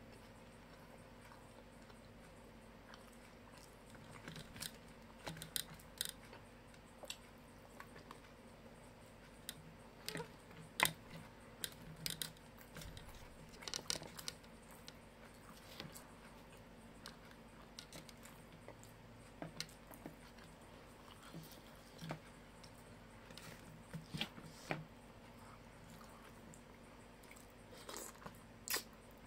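A person chewing and crunching fried food eaten by hand, with irregular sharp crunches and mouth clicks over faint room noise.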